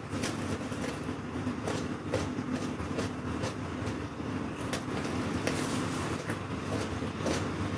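Crisp, irregular crunching of raw vegetables being bitten and chewed, a few sharp cracks a second or so apart, over a steady low mechanical hum.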